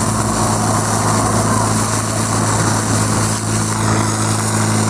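Portable fire pump's small petrol engine running steadily while it drives water through the hoses, with the hiss of water jets from the nozzles.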